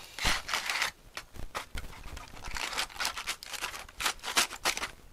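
Aluminium foil crinkling and tearing as a knife slits open a foil cooking packet, in short, uneven crackles.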